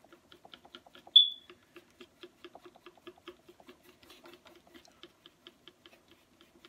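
A stick stirring JB Weld epoxy in a small cup: a rapid, even scraping tick about five times a second. About a second in there is one short high squeak, the loudest sound.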